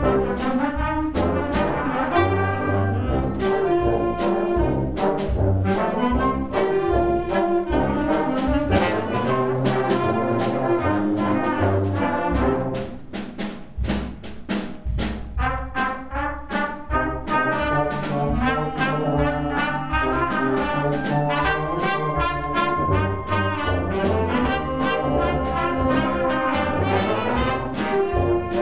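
Concert band of brass and woodwinds, with trombones, tuba and saxophone, playing a ragtime-style piece over a steady beat. Around the middle the sound thins and drops for a few seconds to a lighter, clipped accompaniment, then the full band comes back in.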